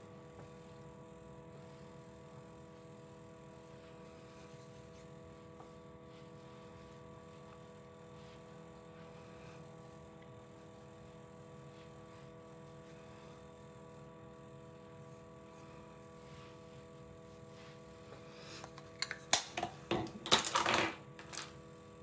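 Faint steady background hum with several held tones. Near the end come a few seconds of sharp, irregular clicks and clattering as makeup items are picked up and set down.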